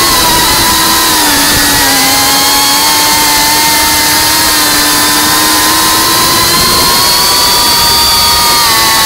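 FPV racing drone's electric motors and propellers whining in flight, with a hiss of rushing air. The pitch shifts with the throttle: it sags about two seconds in and climbs again around seven to eight seconds.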